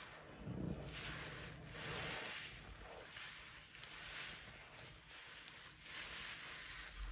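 A sudsy sponge squeezed by gloved hands in a basin of soapy water: wet squishing and foam crackle that swell and fade with each squeeze, with a few small sharp ticks.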